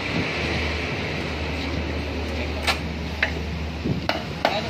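Several sharp clinks of hand tools and metal engine parts being handled on a dismantled Mitsubishi L300 petrol engine's cylinder head, mostly in the second half, over a steady low hum.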